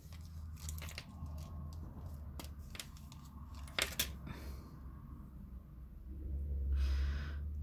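Small clicks and taps of metal stud earrings and their backs being handled and pulled off a paper earring card, with a sharper click about four seconds in. A steady low hum runs underneath and swells slightly near the end.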